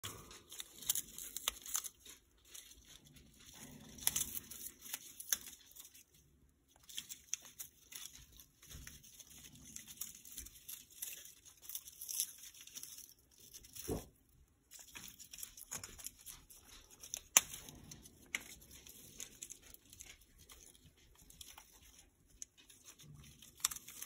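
Congo African grey parrot tearing and crunching the layered cardboard pieces of a hanging chew toy with its beak: irregular crackling tears and sharp snaps, with a couple of brief pauses.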